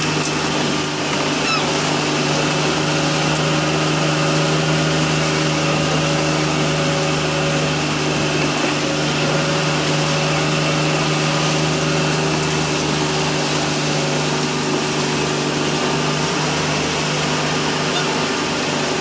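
A motor running steadily at a constant pitch, its hum unbroken throughout.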